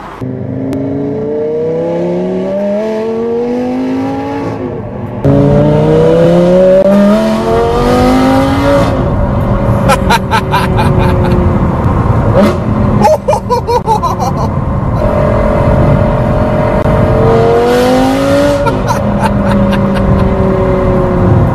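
Sports car engine heard from inside the cabin, accelerating hard through the gears: the pitch climbs steadily, drops at each upshift, and climbs again, with bursts of sharp exhaust crackles in between.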